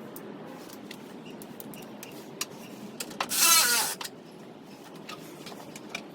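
Light clicks and taps of hand tools at work, with one loud, harsh sound of under a second about three seconds in that falls in pitch.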